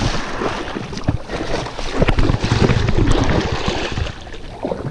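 Shallow water splashing and sloshing irregularly as people wade through it and sweep their hands through it, trying to grab a carp.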